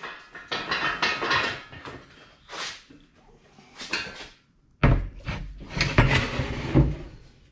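Bare LS V8 engine block being handled on a workbench: scraping and clattering as it is shifted, then a run of heavy metal knocks and thuds in the second half as it is tipped and set down.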